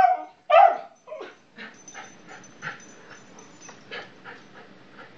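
Beagle barking: two loud high yelps in the first second, a short falling whine just after, then fainter, irregular whimpers.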